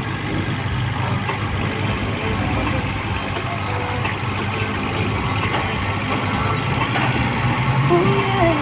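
A steady low engine hum, like a vehicle idling, with a brief voice-like glide near the end.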